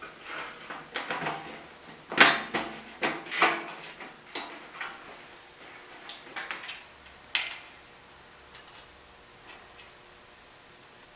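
Metal clanks, knocks and scrapes of an in-tank fuel pump assembly on its metal flange plate being worked down through the fuel tank's opening and seated over the mounting studs. The knocks come in a busy cluster, the loudest about two seconds in and a sharp one past seven seconds, then only a few light ticks.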